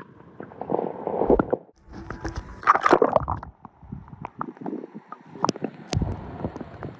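Water sloshing and gurgling around a phone held at or just under the water's surface, with irregular splashes and sharp clicks.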